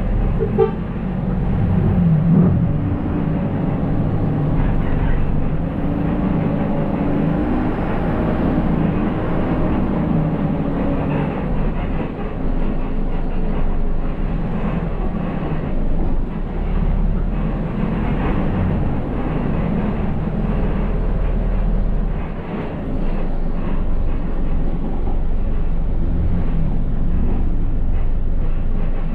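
Steady engine and road noise inside a city bus's cab while it drives in town traffic, with a short horn toot near the start.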